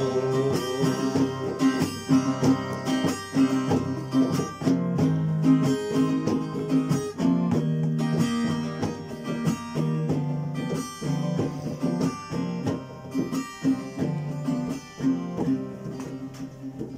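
Guitar playing a song's accompaniment, plucked and strummed chords in a steady repeating pattern, growing quieter near the end.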